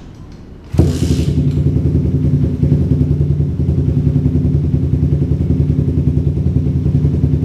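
Suzuki Satria FU 150's single-cylinder four-stroke engine starting about a second in through an aftermarket Arrow Trophy titanium exhaust, then idling steadily with a rapid even pulse while it warms up from cold.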